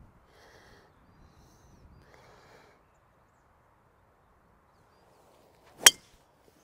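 A golf driver strikes the ball off the tee: one sharp, loud crack near the end. Before it there is only faint noise.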